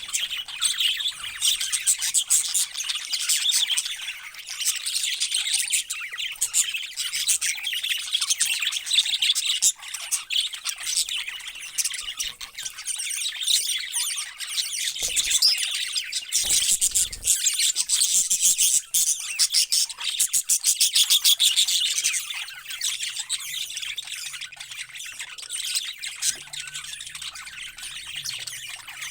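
A group of parrots calling together in a dense, continuous chorus of high chirps and calls.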